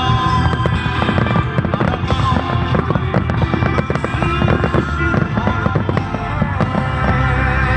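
Fireworks bursting in quick succession, many sharp bangs and crackles, over loud music playing throughout.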